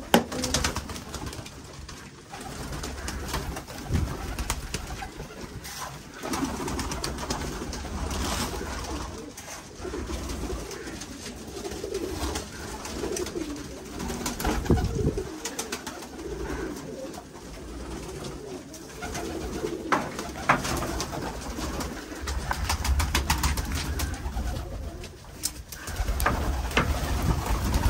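Fancy pigeons cooing in their loft, with scattered clicks and knocks of grain being poured into feeder boxes, and wings flapping near the end as the birds crowd a feeder.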